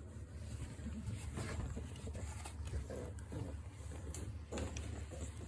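Exotic bully puppy making short, irregular grunts and snuffles over a steady low hum.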